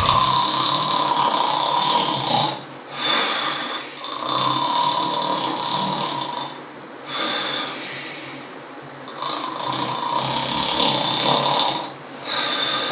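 A man snoring loudly: a run of long snores, each a second or two long, with short breaks between them.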